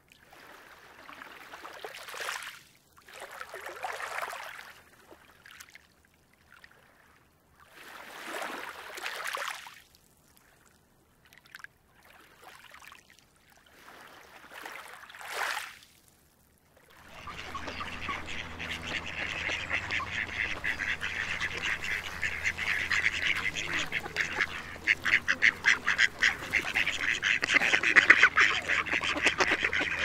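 Waterfowl calling: scattered single calls with pauses between them, then from about 17 s in a flock of ducks quacking in a dense, continuous chatter that grows louder toward the end.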